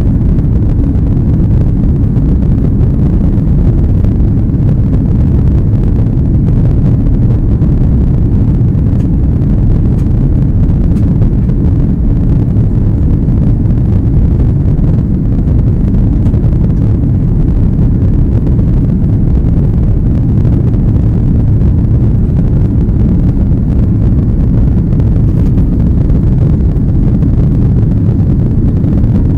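Airbus A330 cabin noise in the climb after takeoff: the jet engines and rushing air make a steady, loud, low rumble.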